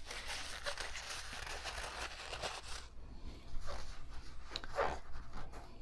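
Hands working on a sewing machine: rustling and rubbing for about three seconds, then a few light clicks and knocks of small parts being handled.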